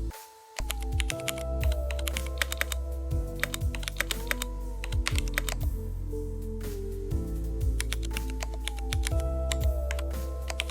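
Computer keyboard typing in irregular quick runs of keystrokes, over background music with sustained tones and a steady low bass.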